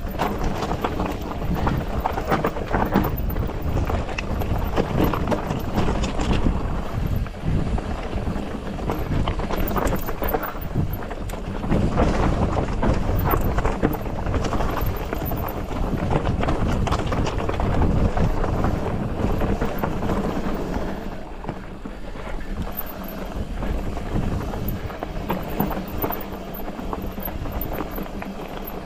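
Polygon Siskiu T8 mountain bike descending loose, rocky trail: tyres crunching and clattering over gravel and rocks with constant knocks and rattles from the bike, and wind buffeting the microphone. The noise eases somewhat about two-thirds of the way through.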